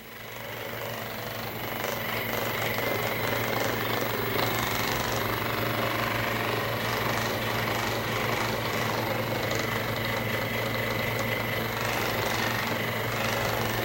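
A small electric motor running with a rapid, steady buzz. It comes up to full strength over the first couple of seconds.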